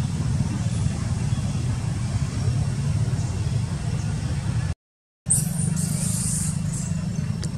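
Steady low rumble with a faint hiss over it, cut off for half a second about five seconds in and followed by a brief burst of high hiss.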